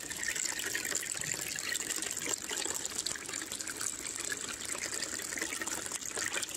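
Water running steadily over the V matting of a cube sluice, a continuous rushing splash.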